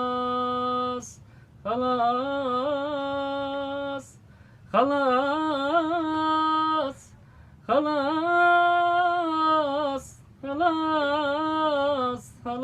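A male voice singing an Iraqi mawwal unaccompanied. It holds long, ornamented notes that waver and turn, in about five phrases separated by short pauses for breath.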